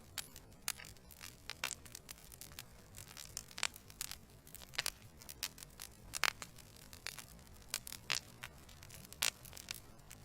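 Wood logs burning in a fireplace, crackling with irregular sharp pops and snaps over a low steady hum.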